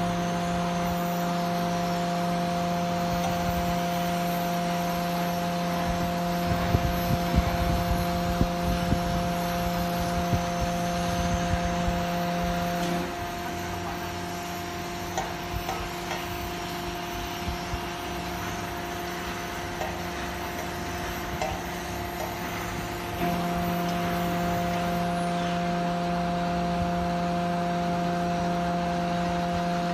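Hydraulic container tilter's power unit running with a steady mechanical hum, with scattered knocks and clanks in the first half. A little under halfway through the hum drops quieter, then comes back at full strength about three quarters of the way in.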